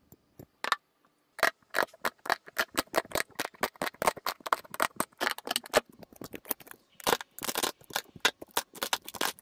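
A thin, brittle yellow crust in a glass dish cracking and snapping as fingers break it up and peel the pieces away. A few sharp crackles come first, then a dense run of them from about one and a half seconds in.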